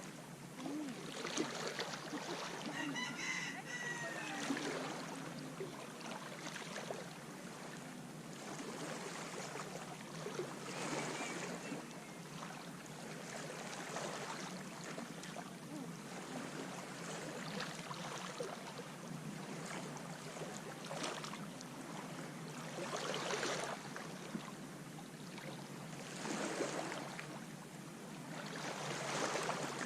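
Small waves washing onto a sand beach, swelling and fading every few seconds. A rooster crows once, about three seconds in.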